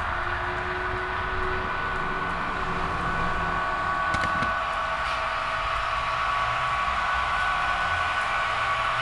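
HO-scale model train of tank cars rolling along the track, a steady running noise with a constant high whine, and a few clicks about four seconds in.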